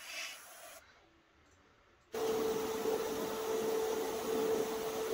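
Airbrush spraying briefly at the start, a hiss that fades out. About two seconds in, a small electric motor cuts in abruptly and runs steadily with a constant hum.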